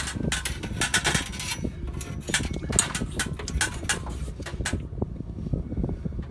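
Retrieval tool clattering against the sheet metal inside an HVAC return duct: rapid, irregular clicks and taps that stop about five seconds in, over a steady low rumble.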